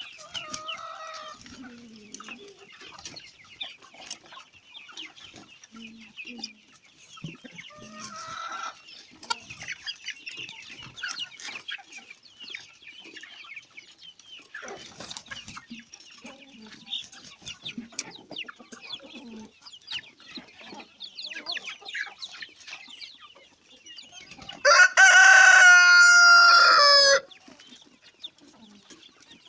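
A flock of improved village chickens clucking and calling as they feed, with a rooster crowing loudly once, for about two and a half seconds, near the end.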